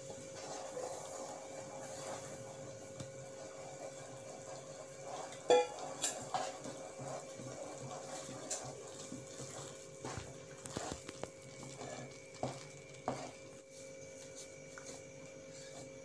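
Wooden spatula stirring rice flour into boiling water in a metal pan, scraping and knocking against the pan as the mixture is worked into a thick dough. The knocks are irregular, the loudest about five and a half seconds in, with a steady hum underneath.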